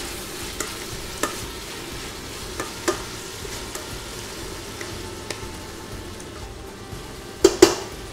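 Onion, garlic, peppers and tomato sizzling gently in a stainless steel pan as a sofrito, stirred with a wooden spoon that clicks against the pan now and then. Two louder knocks come close together near the end.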